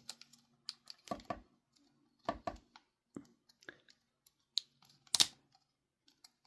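Small plastic clicks and taps from handling the parts of an opened Xbox controller while a replacement bumper is fitted, with a louder, sharp click about five seconds in.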